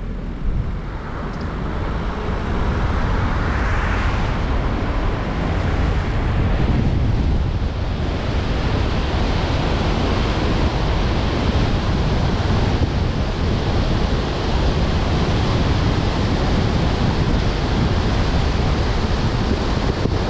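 Steady rushing road noise from a car driving on a wet road: tyres hissing on the wet asphalt mixed with wind buffeting the microphone, growing louder over the first few seconds as the car picks up speed and then holding steady.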